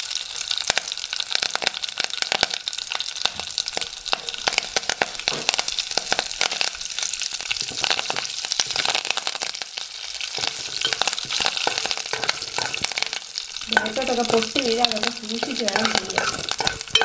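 Mustard seeds, urad dal, dried red chillies and curry leaves sizzling and crackling in hot coconut oil in a steel pan: a tempering frying until it browns. A spoon stirs through it near the end.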